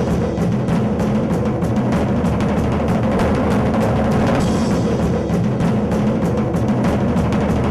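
Rock music dominated by a drum kit: fast, steady drum strikes over a sustained low rumble of bass drum and toms.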